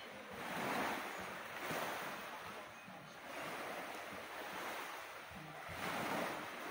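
Small waves washing in on a sandy, pebbly shore, the noise swelling and fading, loudest about a second in and again near the end.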